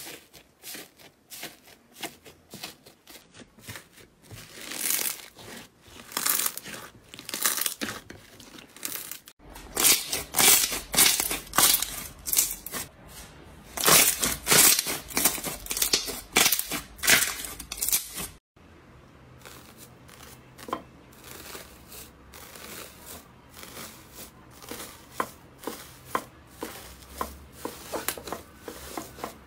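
Slime being pressed and kneaded by hand, giving dense clusters of crackling, crinkling squishes and pops. The sound changes abruptly twice, about nine seconds apart, as a different slime takes over, and is loudest through the middle stretch.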